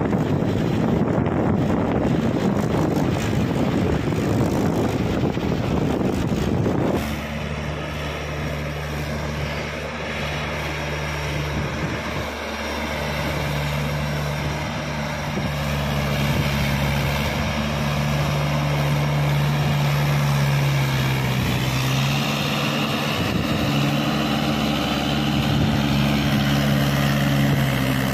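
Diesel tractor engine working hard under load, pulling a trolley heaped with soil. Heavy wind noise covers it for the first several seconds, then a steady drone that dips briefly and settles slightly lower later on.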